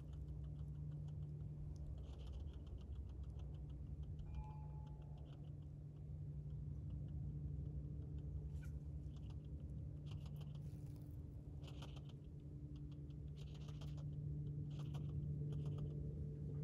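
A young European hedgehog snuffling and foraging close to the microphone: bouts of fine, rapid ticking and crackling that come and go, over a steady low hum.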